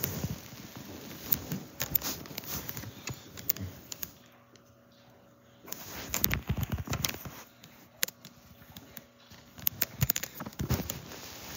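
Rustling and clicking handling noise from a phone being moved about against couch fabric and clothing, with a quieter pause about four seconds in.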